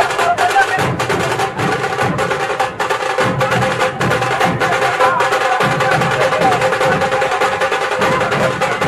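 Fast, loud drumming with many sharp strokes, and a steady held tone running beneath it.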